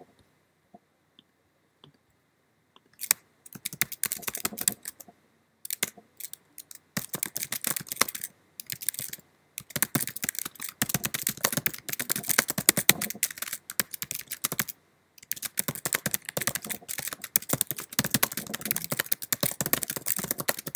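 Typing on a computer keyboard: quick runs of key clicks with short pauses between them. They start about three seconds in, after a near-silent stretch with a few faint ticks.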